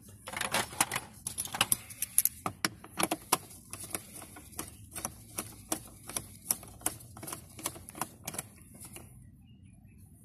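Ratchet wrench clicking as it turns a socket on a long extension to back out a bolt: a run of sharp, irregular clicks, about two to three a second, that stops about nine seconds in.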